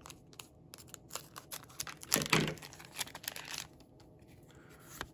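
Trading-card booster pack wrapper being crinkled and torn open, with a louder rip about two seconds in, amid light clicks and rustles of cards being handled.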